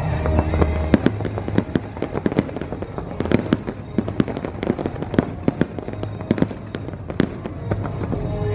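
Fireworks display: a fast, uneven run of sharp bangs and crackles, several a second, with the show's music playing underneath, plainest near the start and again near the end.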